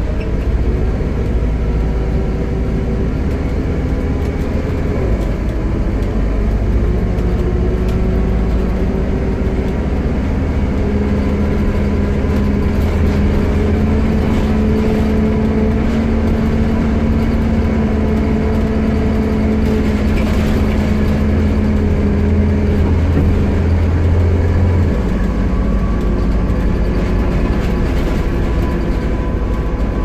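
Volvo B7TL double-decker bus under way, heard from inside the cabin: its seven-litre six-cylinder diesel and driveline run with a heavy rumble and a loud hoover-like whine. The whine climbs slowly in pitch through the middle as the bus pulls, then falls away about five-sixths of the way through as it eases off.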